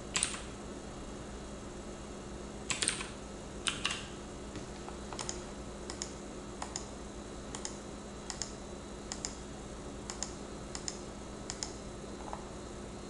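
Computer keyboard keys being pressed: a few quick double strikes in the first four seconds, then single key presses every half second to a second until near the end.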